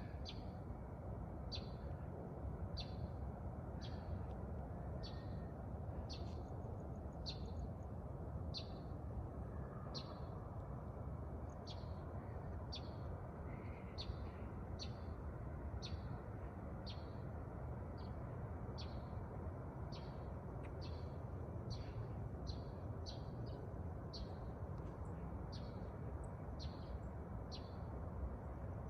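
A bird repeating a short, high chirp roughly once a second, over a steady low background rumble.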